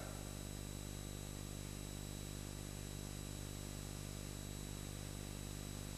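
Steady electrical hum and hiss with nothing else in it: the background noise of an old videotape recording, with mains hum.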